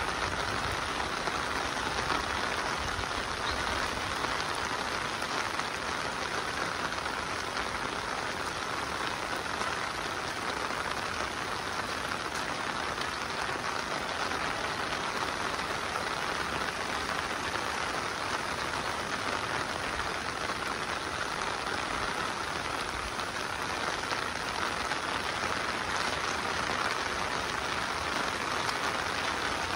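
Steady monsoon rain falling, a dense even patter of drops with no let-up.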